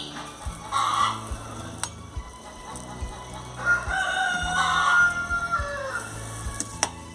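A rooster crowing: a short call about a second in, then one long crow about four seconds in. Under it, a pot is boiling.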